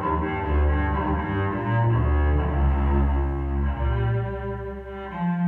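Cello music: bowed notes held about a second each, deep low notes sounding under a higher line.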